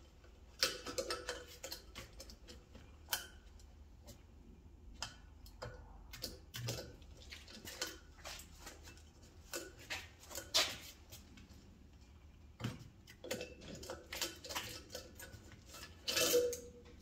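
Irregular light metallic clicks and taps of small valve-train parts and hand tools being handled against a cylinder head during valve assembly, with a few louder clinks.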